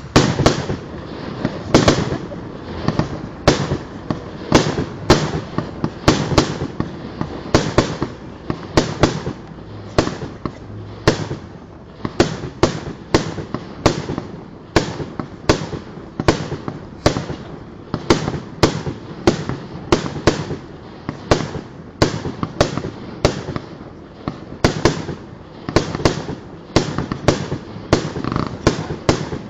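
Fireworks display: aerial shells and rockets bursting in a rapid string of sharp bangs, about one to two a second, each with a short rumbling tail.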